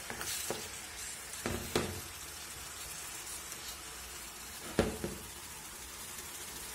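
Minced beef sizzling as it fries in a frying pan, stirred with a wooden spatula that knocks against the pan a few times, the loudest knock about two-thirds of the way through.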